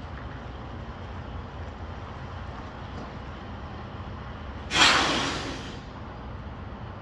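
Semi-truck's diesel engine running as a low rumble while it backs a trailer, then, about two-thirds of the way through, a sudden loud burst of air-brake hiss that fades over about a second.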